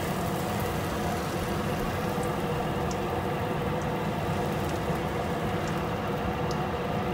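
Crepe batter cooking in a buttered nonstick frying pan, a steady sizzle over a steady hum.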